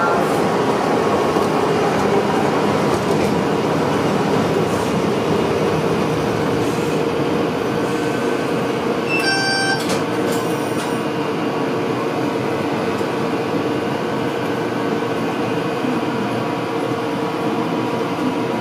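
Tosaden Kōtsū tram running along its track: a steady rumble of wheels and running gear with a constant hum. About nine seconds in, a brief ringing tone sounds.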